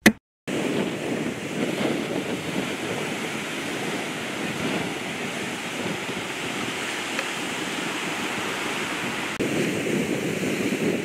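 Sea surf washing onto a beach, a steady rush of noise with wind buffeting the microphone. It is preceded by a brief sharp sound at the very start. It gets slightly louder near the end.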